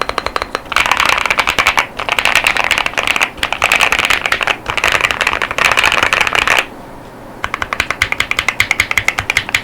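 Fast typing on an Akko JIN01 mechanical keyboard with Wuque Studio Light Tactile 35gf switches and PBT Cherry-profile keycaps: rapid keystroke clacks in runs, with a pause of about a second two-thirds of the way through.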